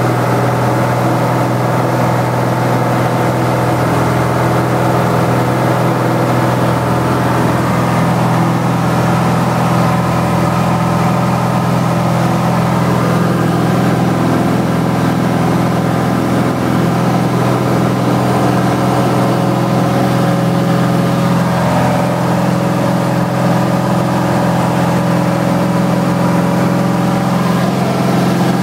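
Piston engine and propeller of a single-engine light aircraft droning steadily in flight, heard from inside the cabin.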